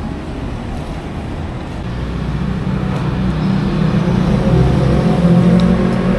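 Street traffic: a motor vehicle's engine running close by, growing louder over the last few seconds as it draws near.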